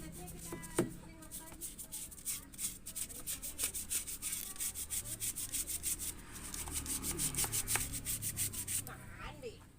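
Rapid back-and-forth scrubbing strokes on the surfaces of a car's engine bay, about four or five a second, working at crusted grime; the scrubbing stops near the end.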